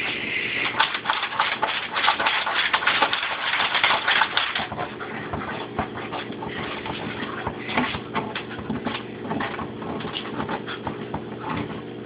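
A corgi scratching and pawing at a refrigerator door, its claws and nose scraping and snuffling against the metal in quick, irregular scratches, busiest in the first few seconds. A steady low hum runs underneath.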